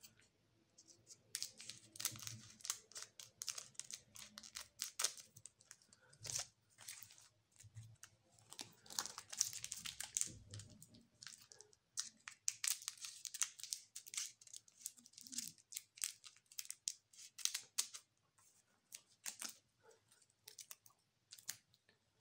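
Scissors snipping through the foil wrapper of a trading-card booster pack, with the crackle and crinkle of the foil pack being handled: clusters of short, sharp crackling snips with brief pauses between them.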